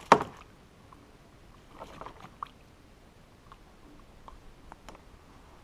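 A sharp knock just after the start, then faint scattered clicks and soft wet rustling as hands strip a clump of waterweed off a landed bass at the kayak's side.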